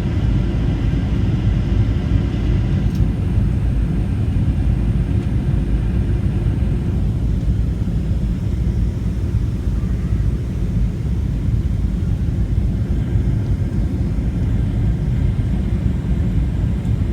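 Boeing 737-700 jetliner in flight, heard from inside the cabin: a steady, loud low rumble of engines and airflow. A faint high engine whine is present in the first several seconds and then fades.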